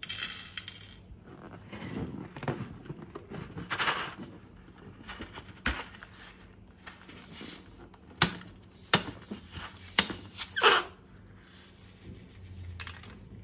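Hands handling slime-making materials: rustling and squishing with a run of sharp clicks and crackles, the loudest few clustered about two-thirds of the way through.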